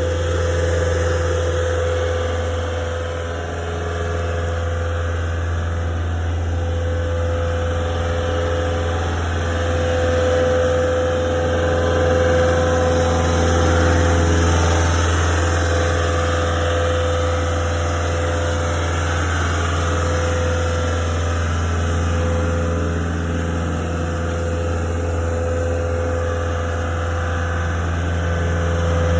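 Wacker Neuson ST45 compact track loader's diesel engine running steadily at idle: a constant low hum with a steady higher tone over it, swelling slightly about a third of the way through.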